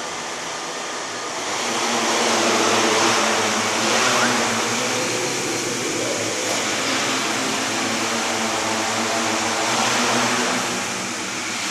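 Small electric multirotor's propellers whirring, growing louder about two seconds in as it throttles up and lifts off the floor, then a steady buzz while it hovers.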